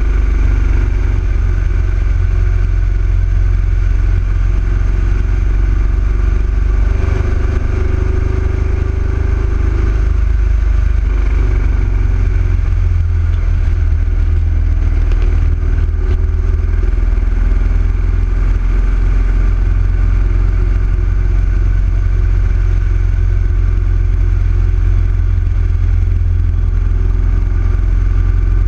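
Yamaha XV1900 V-twin motorcycle engine running steadily while the bike is ridden.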